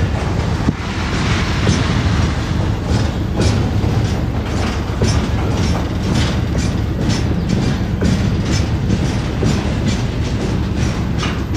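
Container freight train wagons rolling past close by: a steady rumble with the clickety-clack of wheels knocking over rail joints, several knocks a second.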